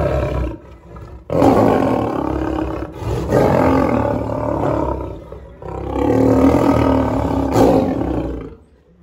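A lion roaring in repeated long bursts of a couple of seconds each, with short breaks between them, dying away near the end.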